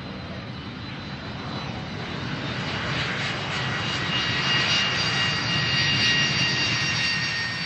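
Jet airliner passing, its engine noise a steady rush with a high whine that builds to a peak about five or six seconds in and then eases off.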